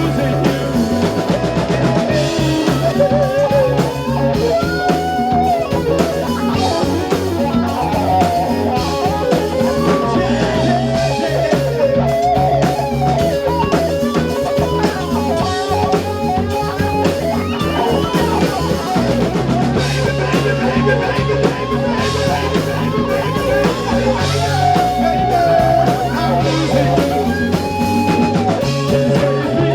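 Live rock band playing loud: an electric guitar lead with bending notes over drums and bass.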